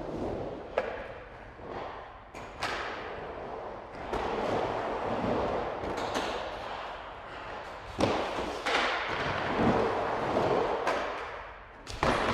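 Skateboard rolling, a steady rumble of wheels on pavement, broken by several sharp clacks and thuds of the board striking the ground, the loudest about eight seconds in and near the end.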